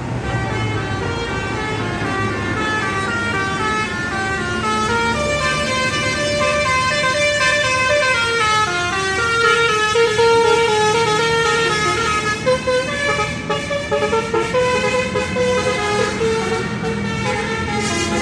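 Bus telolet horn, a multi-tone musical horn on an Indonesian bus, playing a melody of stepped notes over the rumble of the vehicle. The notes turn quicker and choppier in the second half.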